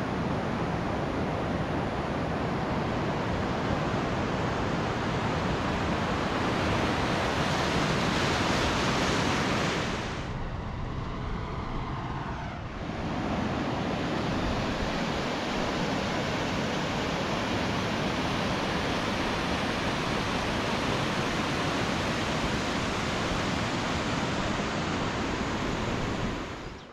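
Steady rushing of a mountain stream, an even roar of water with no other sounds in it; it softens for about three seconds near the middle.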